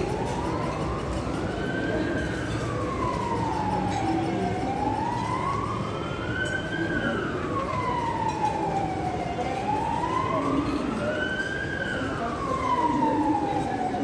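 An emergency vehicle siren wailing, its pitch sliding slowly up and down in three long rises and falls, over a steady background of street noise.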